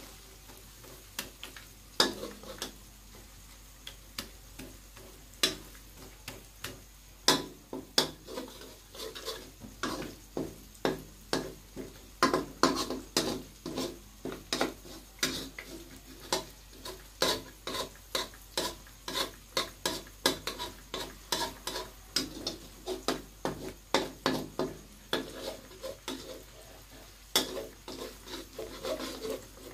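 Two plastic spatulas scraping and tapping against a nonstick wok as an egg omelette with chopped vegetables is pushed and shaped, in quick irregular strokes, over faint sizzling.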